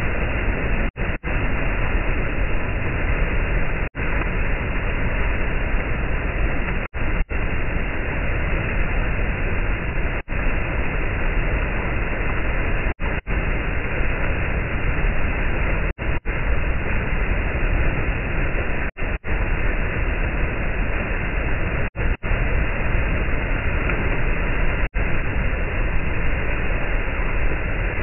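Turbulent floodwater rushing and churning: a loud, even noise with no distinct splashes. The sound cuts out for a split second about every three seconds.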